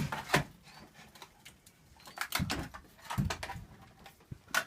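Scattered knocks and clicks from handling a partly sawn-through optical disk drive: two sharp clicks at the start, a couple of duller thuds in the middle and a sharp click near the end.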